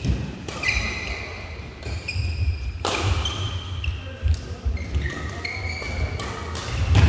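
Sneakers squeaking on an indoor badminton court floor in many short high squeaks, with a few sharp cracks of rackets striking a shuttlecock and the thud of footfalls, in a reverberant hall.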